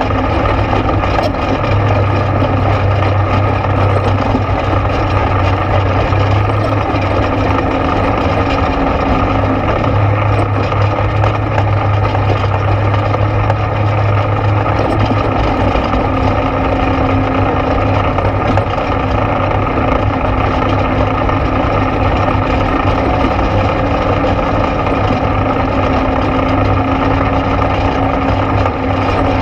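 ATV engine running steadily while riding, a constant low drone with little change in pitch or level.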